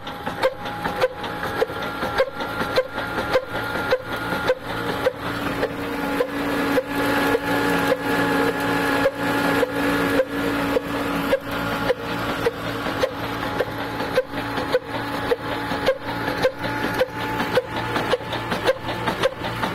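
Old horizontal black oil engine with heavy flywheels running slowly, with a regular beat about twice a second. It drives a belt-driven grain mill, which adds a steady grinding whine that swells for a few seconds in the middle.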